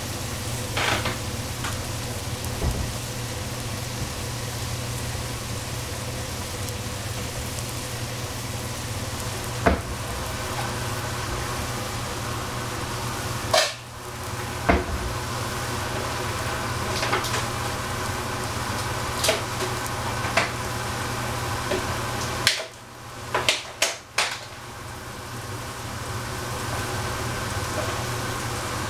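Cabbage and bean thread sizzling in a pan with water just added, a steady frying hiss over a low hum. A utensil knocks sharply against the pan about half a dozen times, and the sizzle drops away briefly twice.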